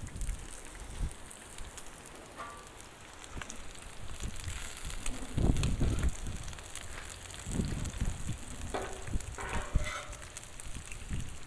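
Bacon, sausage patties and hash browns sizzling steadily on a Blackstone flat-top griddle, with a metal spatula scraping and tapping on the griddle steel as the sausage is turned, and a few low thumps around the middle.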